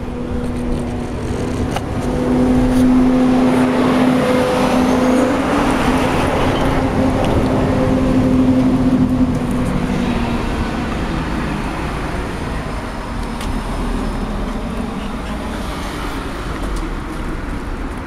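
A motor vehicle's engine going by: a steady hum swells about two seconds in and fades away after about ten seconds.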